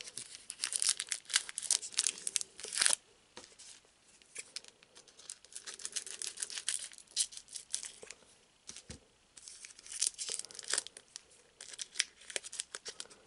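A foil trading-card booster pack wrapper being torn open and crinkled in the hands, in several bouts of crackling rustle with short pauses between.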